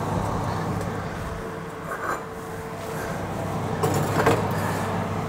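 Bosch fan oven running open with a steady hum while metal muffin trays are slid onto its wire racks. Light metal scrapes and clinks come about two seconds in and again around four seconds.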